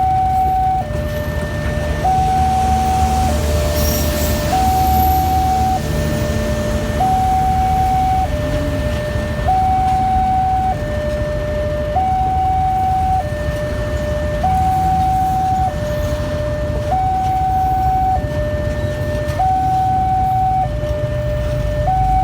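A two-tone electronic warning alarm steps between a higher and a lower note about every 1.2 seconds, over the low rumble of a slow-moving train.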